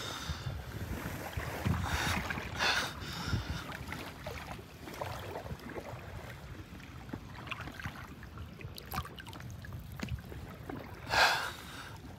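Small waves lapping against a kayak, with a few short whooshing bursts about two to three seconds in and a stronger one near the end.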